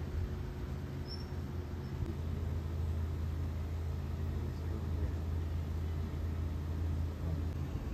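Steady low rumble with an even background hiss.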